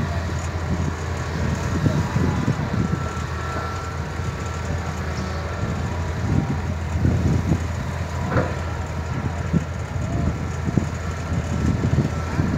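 Hitachi Zaxis 200 excavator's diesel engine running steadily, with scattered low knocks and faint high whines.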